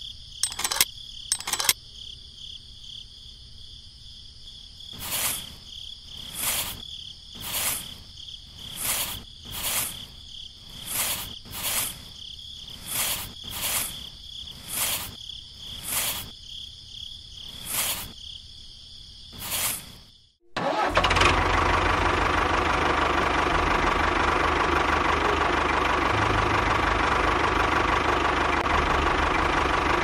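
Sand being scooped and tipped into a small plastic toy trolley, one scoop about every second, over faint steady high tones. About two-thirds through, this cuts to a loud, steady engine-like running sound with a low hum, for the toy tractor moving off.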